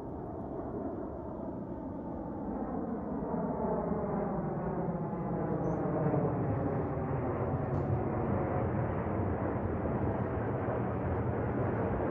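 Airliner's jet engines passing overhead, the noise steadily growing louder with a sweeping, phasing quality as it approaches.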